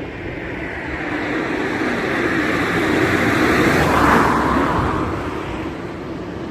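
Class 37 English Electric diesel locomotive hauling a rail head treatment train, approaching and passing. The rumble grows louder to a peak about four seconds in, with a change in pitch as it goes by, then fades.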